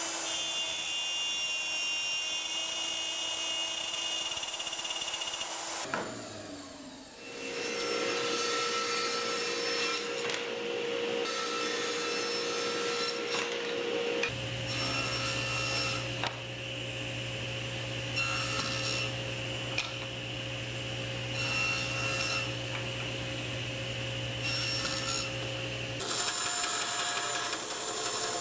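A plunge router running as it cuts walnut, spinning down after about six seconds. Then a table saw runs, with walnut boards fed through it in a series of cuts. Near the end, a bandsaw runs as it cuts a walnut piece.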